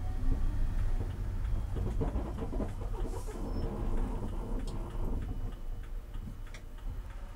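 In-cabin low drone of a BMW E90 330i engine running near idle as the car rolls slowly in light traffic, with low road rumble. Occasional light clicks and rattles come from the stripped cabin.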